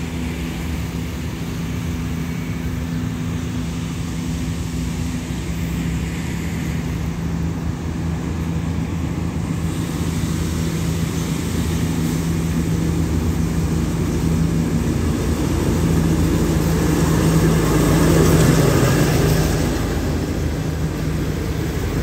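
Alsthom diesel-electric locomotive 4214 hauling an express train into the station and slowing to stop, its engine hum steady and growing gradually louder. It is loudest about eighteen seconds in as the locomotive passes, with a hiss of wheel and brake noise over it, then the coaches roll by.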